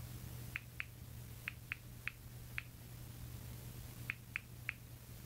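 Short, light key-press ticks from a smartphone's on-screen keyboard as a word is typed: six in about two seconds, a pause, then four more near the end.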